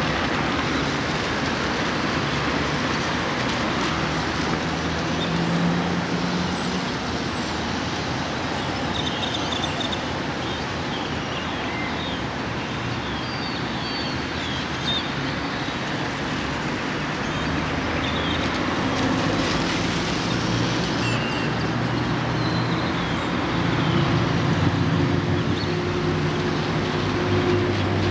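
Steady street traffic with engine hum from passing vehicles, growing louder in the second half, while a flock of great-tailed grackles in the trees gives scattered high, squeaky calls, mostly around the middle.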